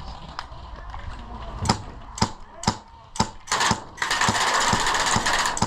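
Airsoft guns firing: sharp single cracks about every half second, then from about four seconds in a dense, continuous burst of full-auto fire.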